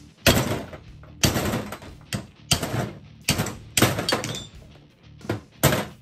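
Hammer blows on a screwdriver driving the stubborn old inner grease seal out of a Dodge M37 front wheel hub: about eight sharp metal-on-metal strikes at uneven intervals, each ringing briefly.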